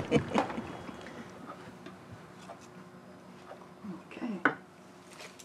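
Quiet kitchen with a few faint, light clicks of a utensil serving brownies from a baking pan onto a plate, and a short voice sound about four seconds in.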